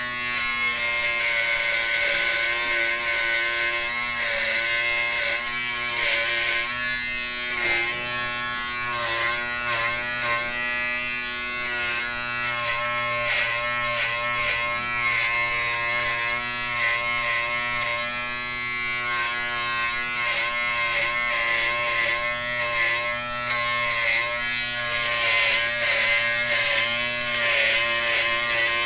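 Electric razor buzzing steadily while shaving stubble, its pitch holding but the rasp of cutting rising and falling as the head is moved over the face.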